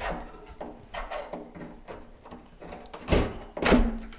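Steel flat bar knocking and scraping as it is levered under the rim of a metal kitchen sink stuck fast to the countertop, with four or five separate clanks, the loudest two near the end, one leaving a short ring. The sink is held down hard, which the installer suspects is a bead of silicone.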